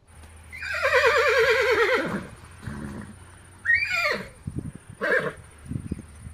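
An animal's call: one long, quavering call falling in pitch, then two shorter calls about a second and a half apart.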